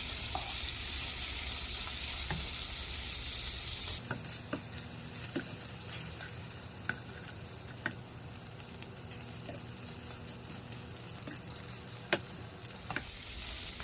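Bacon frying in a pan: a steady sizzle with scattered sharp pops of spitting fat.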